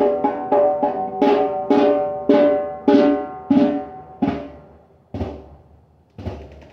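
Hand drum struck in a run of ringing, pitched strokes, about two a second, slowing to two quieter strokes a second apart near the end.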